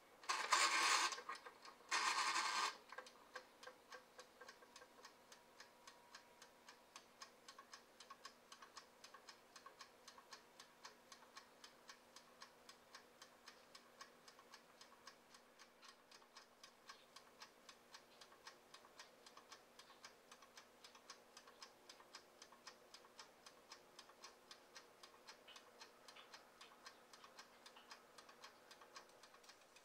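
Mechanical timer dial on a Thanko vertical rotating skewer grill being wound twice with a loud ratcheting whirr, then ticking fast and evenly as the timer runs down. A faint steady hum lies underneath.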